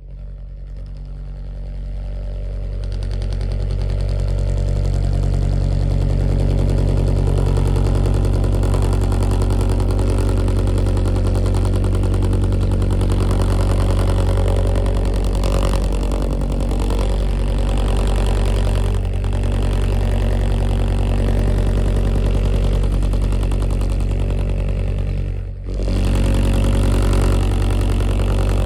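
Subwoofer playing a loud, steady low bass tone with a buzzing edge, driving a plastic dish of oobleck on its cone. It swells up over the first few seconds and dips briefly about 25 seconds in.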